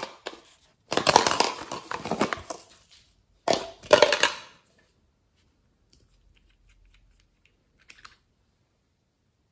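Small plastic container being opened and handled: two bursts of crackling, crinkling plastic, the first about a second in and the second about three and a half seconds in, followed by a few faint clicks near the end.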